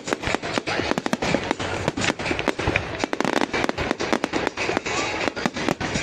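Fireworks display going off: a dense, rapid run of bangs and crackles, several a second.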